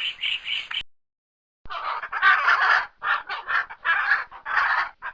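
Chickens clucking and cackling in a string of loud, harsh calls, after a brief break; before the break, a short run of rapid high chirps, about four a second.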